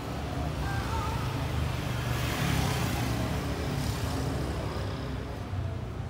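Street traffic with engine rumble, as a motor vehicle passes close by, loudest about two to three seconds in and then fading.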